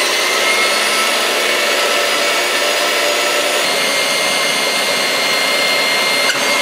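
KitchenAid stand mixer running on high speed, its wire whisk whipping eggs and sugar in the steel bowl. A steady motor whine with whisk noise; its pitch climbs briefly at first, then holds.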